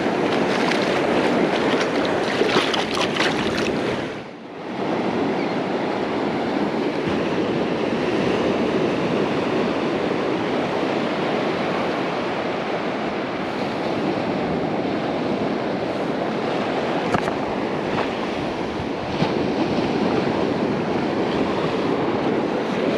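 Ocean surf washing steadily onto a beach, a continuous rushing with a brief dip about four seconds in.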